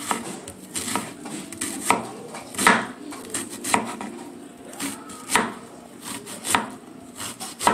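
Kitchen knife slicing a red onion on a wooden cutting board: sharp knocks of the blade on the board at an uneven pace, the loudest a little under three seconds in.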